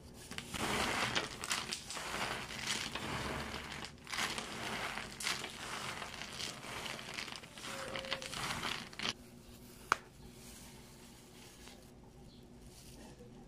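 Disposable plastic gloves crinkling and crisp baked eggnog cookies rattling and scraping against each other as gloved hands stir through a heap of them, for about nine seconds. About ten seconds in there is one sharp snap as a cookie is broken in half, then only faint handling.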